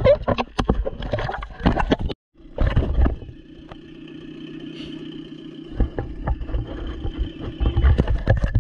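Water splashing and wind buffeting on a boat-mounted action camera. It breaks off briefly about two seconds in, and then a jet ski engine drones steadily as it tows the banana boat, with the buffeting rising again toward the end.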